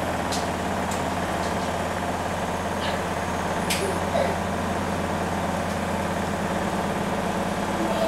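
Front-loading washing machine running with a steady hum, with a few faint clicks over it.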